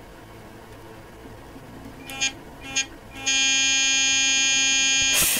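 Royal sonic electric toothbrush fitted with an oversized glued-on replacement head, switched on: two brief pulses, then a loud steady buzz from about three seconds in, with a short hiss near the end. The buzz carries a noise that the owner puts down to the new head's misshapen fitting not matching the drive shaft and resonating.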